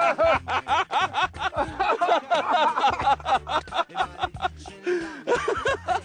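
A man laughing hard, in quick repeated gasps, over background music.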